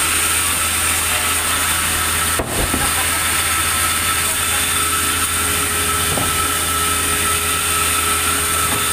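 Sawmill machinery running steadily with a constant high whine over a low hum, briefly dipping about two and a half seconds in.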